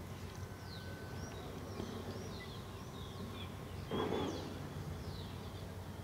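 Small birds chirping over and over, short high chirps on a steady low hum. About four seconds in there is a brief, louder noisy sound.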